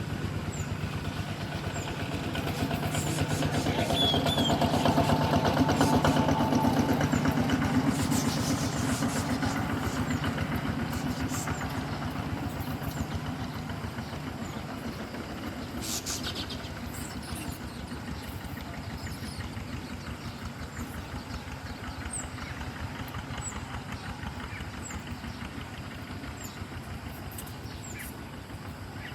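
A motor engine running with a steady pulse. It grows louder to about six seconds in, then slowly fades away.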